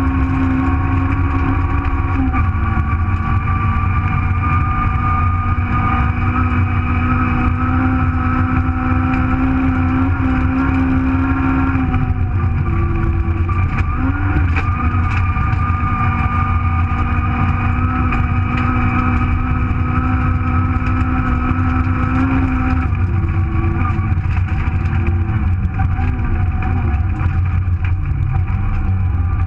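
Rally-prepared 1.4-litre Nissan Micra engine heard from inside the car, held at high revs under load over heavy low road and tyre rumble. The engine note drops briefly a couple of seconds in, near the middle and about three-quarters of the way through, as the driver lifts or changes gear.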